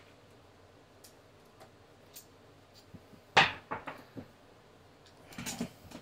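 Hard knocks and clicks of parts being handled in a workshop: one sharp knock about halfway through, a few lighter clicks after it, and a short clatter near the end.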